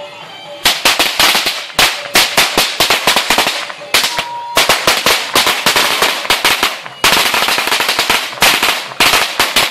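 A string of firecrackers going off: a rapid, irregular volley of sharp bangs starting about half a second in, with brief pauses about four and seven seconds in.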